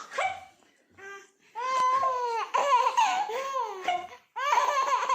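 A baby vocalizing in high-pitched, drawn-out squeals and wails that glide up and down: two short sounds, then long continuous calls from about a second and a half in, with a brief pause near the end.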